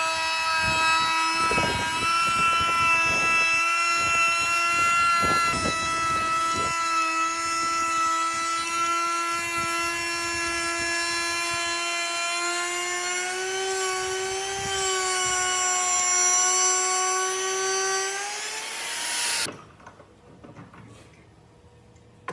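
Handheld power tool working wood, its motor running with a steady high whine and rough grinding strokes in the first several seconds. The whine creeps up in pitch and then stops abruptly about 19 seconds in.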